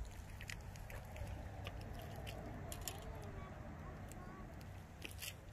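Faint, distant voices over low steady background noise, with a few light clicks.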